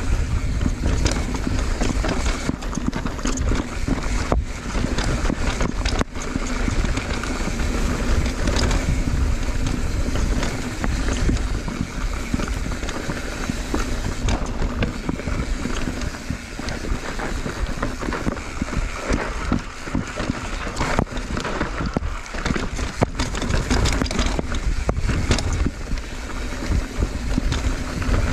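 Wind buffeting the microphone of a fast downhill mountain bike ride, with frequent clicks and knocks of the bike rattling over rough trail.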